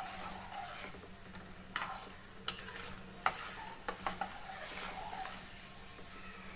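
Hot oil sizzling in a stainless steel kadai as a metal spoon stirs a tempering of mustard seeds, cumin, lentils and dried red chillies. A few sharp clicks stand out between about two and four seconds in.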